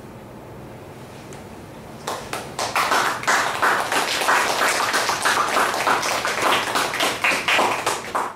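Audience applauding, starting about two seconds in.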